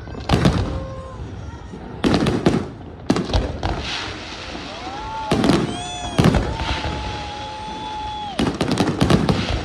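Fireworks display: volleys of sharp bangs and rumbling booms every second or two, some in quick clusters. Midway a rising whistle-like tone is followed by a long steady one.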